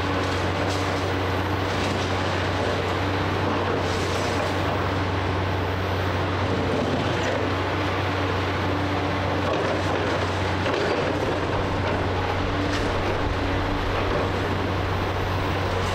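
Komatsu PC490 heavy-duty excavator's diesel engine running steadily under working load, with a deep constant hum. A few faint cracks and knocks come through, typical of the pulverizer crushing concrete.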